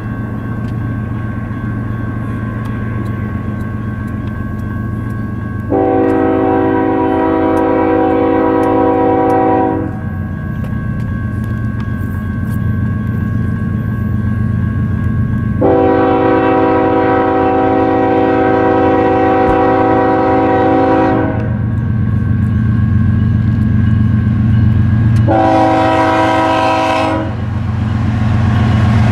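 Freight train diesel locomotive's multi-chime air horn sounding over the steady rumble of the passing train: two long blasts, a short one, and a further blast starting at the very end. Long, long, short, long is the pattern of the standard American grade-crossing signal.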